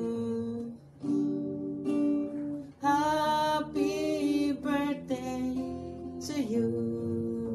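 A man singing, accompanied by a strummed acoustic guitar. The song comes in phrases with two short breaks, about a second in and just before three seconds.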